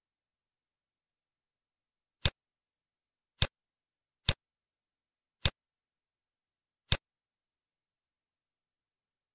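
Five sharp computer mouse clicks, spaced about a second apart, with dead silence between them.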